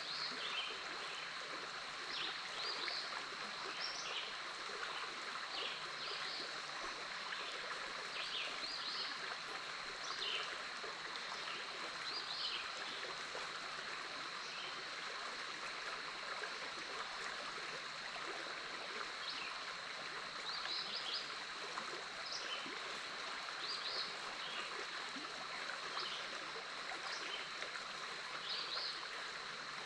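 Big Otter River flowing over its bed as a steady, even rush of water. Over it runs a constant high-pitched tone, with short high chirps scattered throughout.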